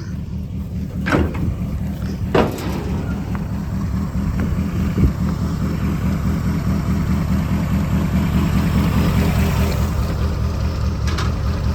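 A 1989 Ford Mustang Fox Body's engine idling with a choppy, pulsing rumble, which the owner takes for the sound of an aftermarket cam. Two brief sharp knocks sound about one and two and a half seconds in.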